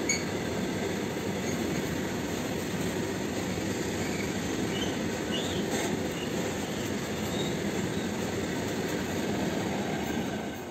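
Loaded freight train's covered goods wagons rolling past at close range: a steady, dense rumble of steel wheels on the rails.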